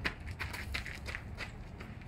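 Footsteps, a series of soft, irregularly spaced steps, over a low steady rumble.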